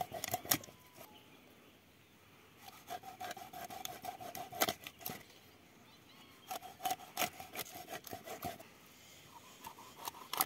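A knife sawing through fish in two runs of rough back-and-forth strokes, with scattered clicks and knocks between them.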